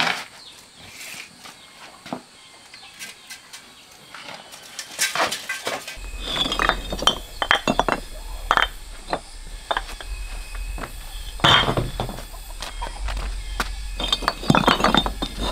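Red perforated clay bricks clinking and knocking against each other as they are picked up from a pile and stacked by hand, a rapid run of sharp ringing knocks that starts about six seconds in.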